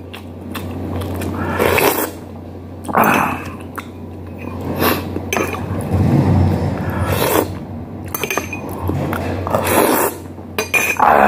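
Close-miked eating sounds: chewing and lip-smacking with short clinks and scrapes of a spoon on a plate, and near the end a sip of broth from a spoon.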